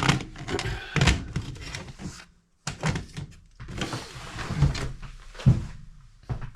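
Nylon tactical gear (plate carrier and belt with pouches) being handled: irregular thumps and rustling, broken by a brief gap of silence about two seconds in.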